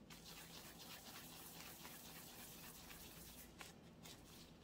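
Faint rustling of disposable plastic gloves and soft squishing of raw minced-meat mixture as hands pinch off and roll köfte, in a run of short scratchy strokes.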